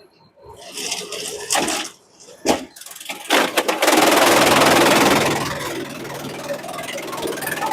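The shredder's engine starting after a few short bursts, running loud for a second or two and then settling into a steadier, lower run.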